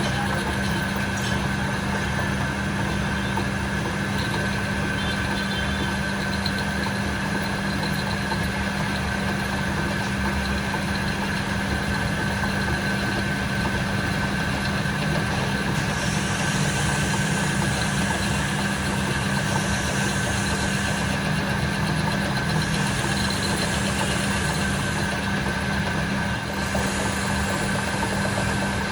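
Workshop machinery running steadily with a constant hum, with bursts of high hiss coming and going in the second half.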